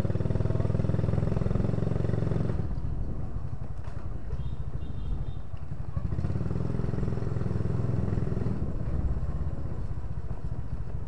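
Motorcycle engine running close to the microphone, pulling harder for the first couple of seconds and again about six seconds in, and easing off between.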